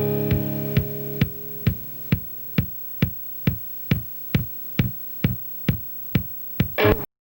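Closing music: a held chord fades away while a drum machine keeps a steady beat of about two hits a second, then a short final flourish and an abrupt cut to silence.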